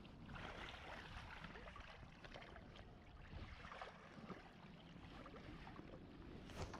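Faint steady rush of river water, with a few small clicks and knocks and one sharper click near the end.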